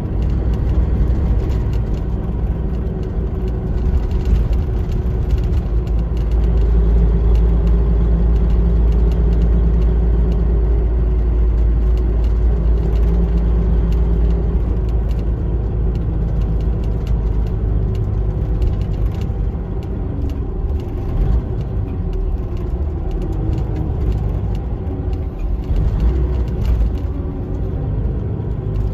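Iveco 370S.12.30 coach on the move, heard inside the passenger cabin: a steady deep diesel engine rumble with road noise, the engine note rising and falling a little.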